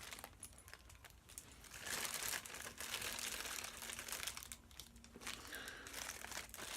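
Faint crinkling and rustling of plastic packaging being handled, with small irregular clicks, picking up about two seconds in.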